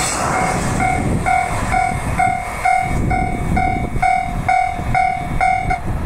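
A level-crossing electronic warning bell rings at a steady pace of about two dings a second over the rumble and clatter of a container freight train's wagons passing at speed. The bell cuts off near the end while the rumble goes on.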